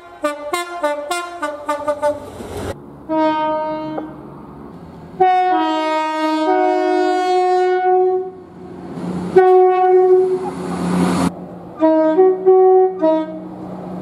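Train horns: a quick run of short staccato blasts, then several longer horn notes, some stepping between two pitches, and a few short toots near the end. A burst of passing-train noise underlies one of the long blasts.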